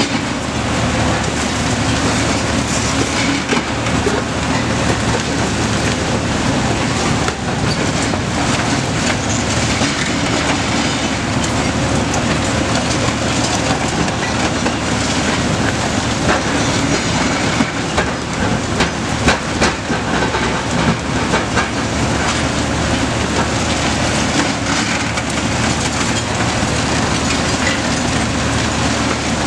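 Two big demolition excavators, 'The Genius' and a Cat 390F STC UHD, running their diesel engines under load as their hydraulic concrete shears crush a concrete bridge deck. There is a steady heavy rumble, with irregular cracking and clattering of breaking, falling concrete that gets louder about two-thirds of the way through.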